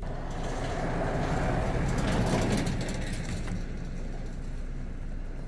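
A motor vehicle passing on the road, its noise swelling to a peak about two seconds in and then slowly fading.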